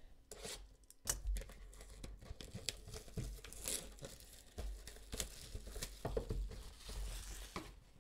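Clear plastic shrink wrap being torn off a sealed cardboard trading-card box and crumpled in the hand: an irregular run of crackling tears and crinkles that starts about a second in.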